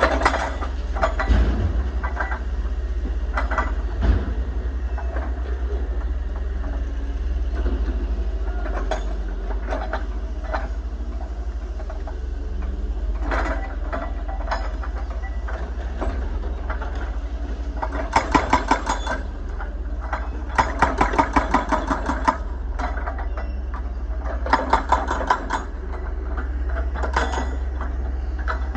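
Excavator's diesel engine running steadily under scattered metallic knocks and clanks, with several bursts of rapid, even metal clatter in the second half.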